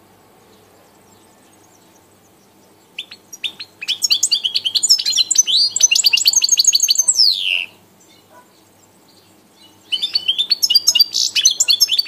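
European goldfinch singing: a fast, high twittering phrase begins about three seconds in and ends in a falling slur, then a second twittering phrase starts about ten seconds in and runs on.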